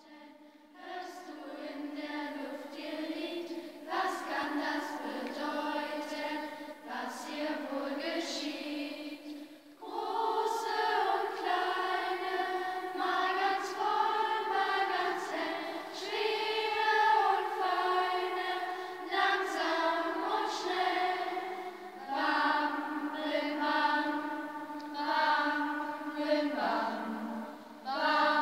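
Children's choir singing, in long sustained phrases separated by brief breathing pauses.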